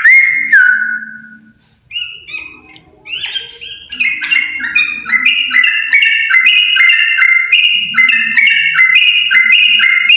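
A pair of yellow-vented bulbuls singing lively, bubbly song: short phrases repeated in quick succession. There is a brief lull about a second in, then a steady run of fast alternating phrases from about four seconds in.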